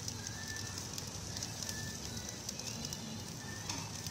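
Charcoal grill cooking skewered pork and vegetables over glowing coals: a steady crackling hiss with scattered small pops.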